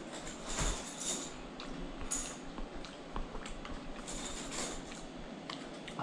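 A person chewing a mouthful of chili, with soft wet mouth noises and a few faint clicks of a metal spoon against the tin can.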